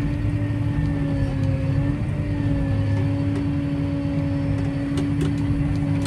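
John Deere 8235R tractor running steadily under load, heard from inside its cab: a low engine rumble with a steady whine over it.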